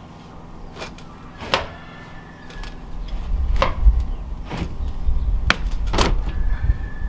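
Scattered knocks and taps, about six in all, from fitting a stainless stovepipe through a wall by hand. A heavy low rumble sets in about two and a half seconds in and stays under the knocks.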